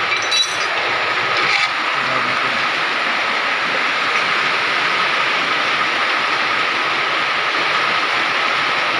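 Heavy rain drumming steadily on a corrugated metal roof, a loud even hiss. A couple of brief knocks in the first two seconds.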